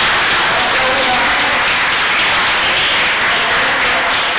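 A roomful of people applauding: steady, dense clapping of many hands.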